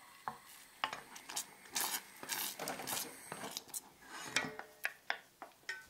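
A wooden spoon stirring a thick sauce in a stainless steel saucepan, scraping and knocking against the pan's bottom and sides in a run of irregular clicks and scrapes, busiest in the middle.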